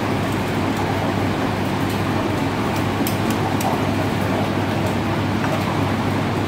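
Steady machine noise: a constant low hum under an even rushing sound, with a few faint clicks from handling.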